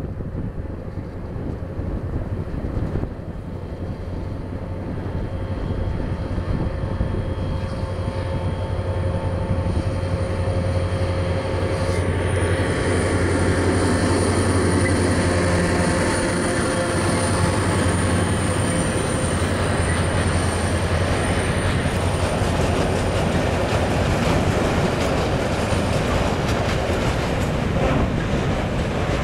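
HŽ 2063 series diesel locomotive running under load as it hauls past, a steady low engine drone. From about twelve seconds in it gives way to the louder rumble of fully loaded freight wagons rolling over the rails, with a thin high wheel squeal.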